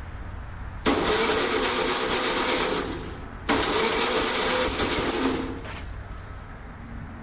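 A starter motor cranking a cold small engine in two bursts of about two seconds each, with a short pause between them. The engine does not fire.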